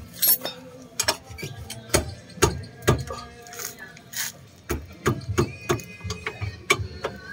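Sharp, irregular metal clicks and knocks of tools working on a car's front suspension knuckle, one every few tenths of a second, with a short high whine about five and a half seconds in.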